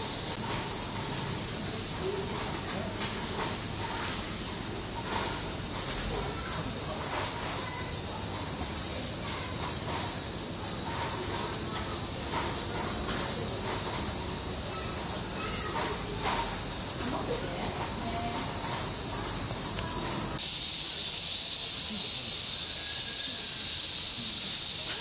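Cicadas singing in a steady, high-pitched summer drone, with faint scattered knocks and distant murmur underneath. The drone changes abruptly and gets a little louder about twenty seconds in.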